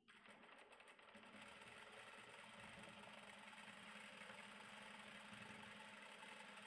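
Industrial lockstitch sewing machine starting up and running steadily as it stitches a fabric loop in place, faint and even.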